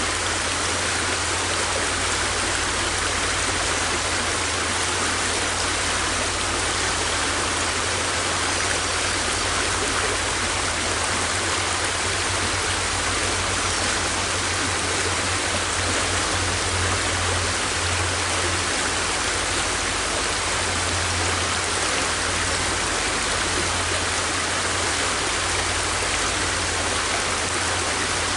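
River water flowing: a steady, unbroken rush.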